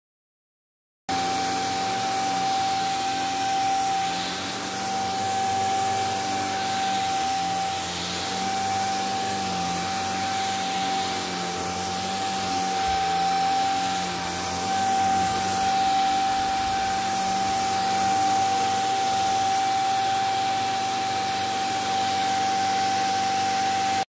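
Handheld bed vacuum motor running steadily, starting abruptly about a second in: an even rush of airflow with one strong, steady high-pitched whine over it.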